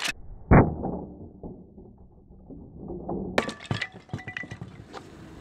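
A hand strike smashes through a stacked pile of thin boards about half a second in, the loudest sound, and the broken pieces clatter down. A second burst of sharp clattering knocks comes about three and a half seconds in.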